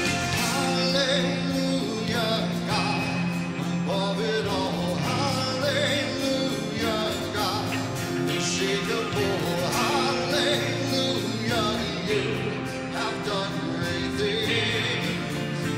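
Church worship band playing a slow song with guitar and keys, with a voice singing over it.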